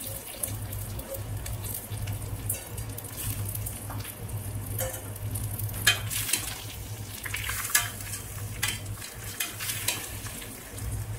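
Rice sizzling gently in hot ghee and oil in an open pressure cooker as it is lightly fried before the water goes in. A steel spoon stirs it, scraping and knocking against the pot a few times, over a steady low hum.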